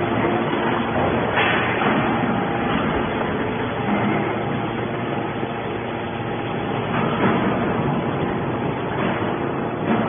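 Hydraulic scrap-metal baler running with a steady loud drone from its hydraulic power unit while the ram pushes a compressed bale of metal shavings out of the press box.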